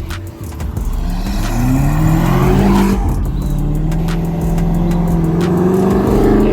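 A supercar engine accelerating hard, its pitch climbing, dropping once at a gear change about three seconds in, then climbing again.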